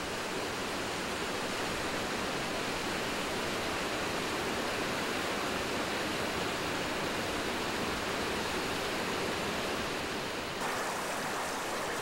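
Mountain waterfall rushing steadily down a steep rock chute. About ten and a half seconds in, the rush turns brighter, as water splashes hard over a rock.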